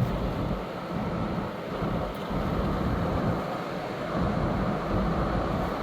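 Car being driven: steady low road and engine rumble, with wind noise on the microphone.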